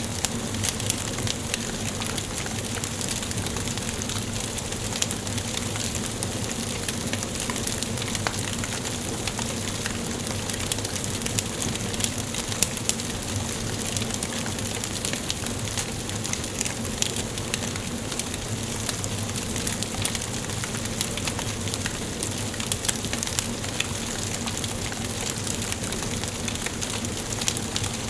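Wood fire burning in a fireplace, crackling steadily with frequent small pops and snaps over a constant hiss.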